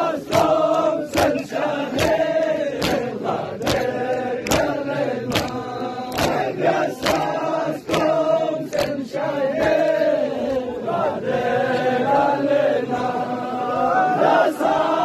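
Group of men chanting a Balti noha, a Shia mourning lament, in unison, with sharp rhythmic slaps about once or twice a second, typical of matam chest-beating keeping time.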